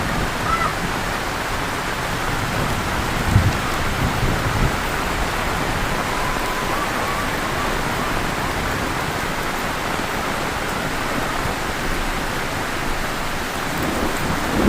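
Heavy rain falling steadily in a dense, even hiss, with a brief low thump about three seconds in.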